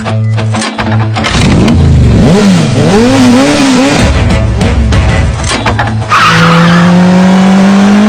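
Exaggerated cartoon snoring sound effect. A loud, noisy snore whose pitch wobbles up and down is followed by one long snore slowly rising in pitch.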